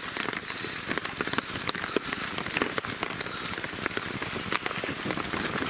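Rain falling steadily, with many irregular sharp drop ticks close to the microphone.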